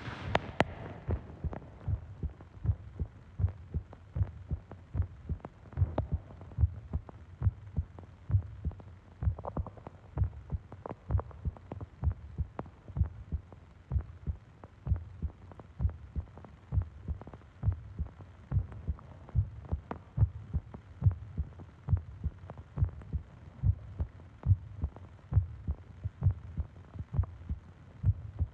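A human heartbeat heard close up, beating steadily at a slow, even pace, each beat a short, low pulse.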